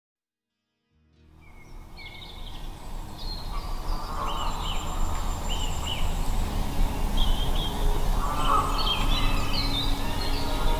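Songbirds chirping with short, repeated calls in a forest ambience, fading in from silence about a second in and growing louder, over soft background music.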